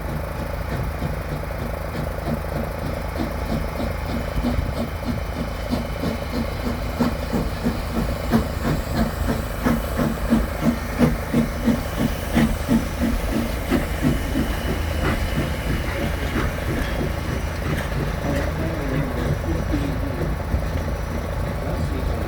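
Virginia & Truckee Railroad engine #29, a 2-8-0 steam locomotive, passing with its exhaust chuffing at a steady beat of about two a second. The chuffs grow louder to a peak about halfway through, then fade, over a constant low rumble.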